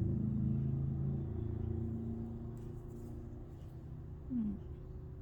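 Low engine rumble of a motor vehicle, dying away over a few seconds, with a short falling tone about four and a half seconds in.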